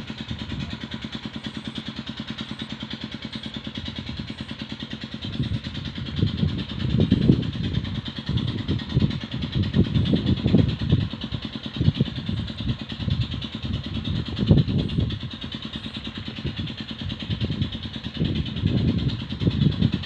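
An engine running with a rapid, even pulse, its low rumble swelling and easing several times.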